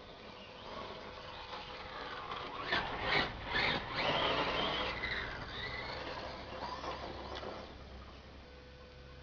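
Kyosho Lazer ZX5 1/10-scale electric RC buggy driving, its motor whining up and down in pitch. It is loudest as it passes close, about three to five seconds in, then fades.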